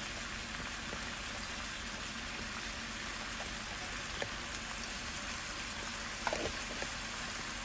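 Oil sizzling steadily in a pot as a little food sautés, a fine even crackle, with a couple of light clicks from a utensil near the end.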